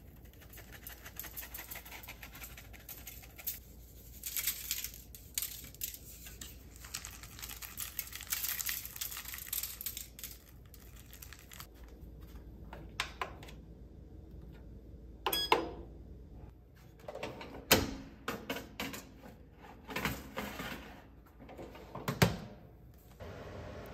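Dry seasoning shaken from a small plastic shaker onto a salmon fillet, a quick rattle of granules in repeated bursts. In the second half a short beep from a Ninja countertop air-fry oven, then sharp clacks and metallic rattling as its glass door is opened and the mesh air-fryer basket goes onto the rack.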